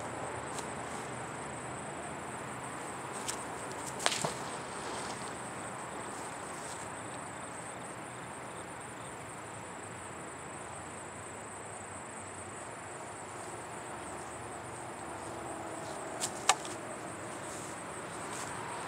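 Outdoor ambience of steady hiss with a thin, high, steady insect chirring, broken by a few sharp clicks and knocks: one about three seconds in, the loudest a little after four seconds, and a quick pair near the end.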